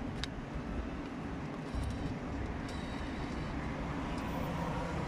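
Steady city street background noise: a low traffic hum, with a couple of faint brief clicks, one just after the start and one about halfway through.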